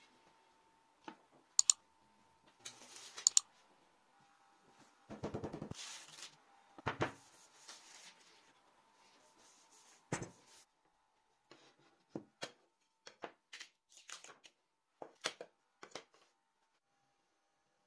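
Intermittent handling noises: short rustles and sharp clicks at irregular intervals, busier in the first half and then a run of separate ticks, over a faint steady hum.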